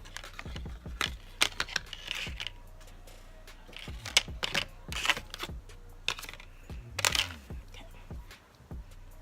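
Makeup being handled: scattered light clicks and knocks of cases and tools, with a few short scraping sounds.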